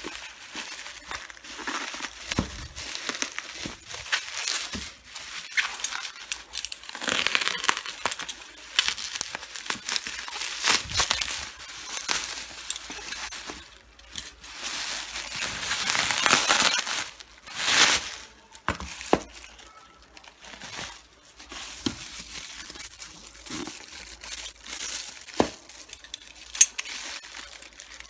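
Lightstick packaging handled and unwrapped by hand: irregular crinkling and rustling of wrapping, with bits of tearing and occasional light clicks and taps.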